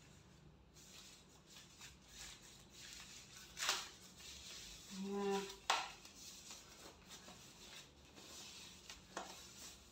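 Handling noise as white foam packaging is pulled off a laser handpiece: faint rustling of the wrap, with three sharp knocks, the loudest about six seconds in.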